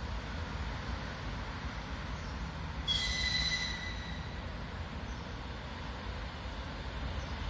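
Distant ER2R electric train giving a short high whistle of about a second, about three seconds in, as it sets off, over a steady low rumble.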